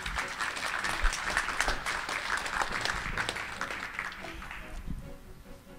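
Audience applauding, dying away after about four and a half seconds.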